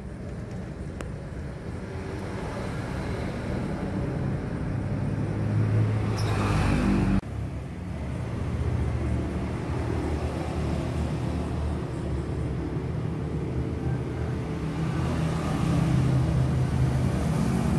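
Low engine rumble of motor traffic, growing louder, then breaking off abruptly about seven seconds in and carrying on again.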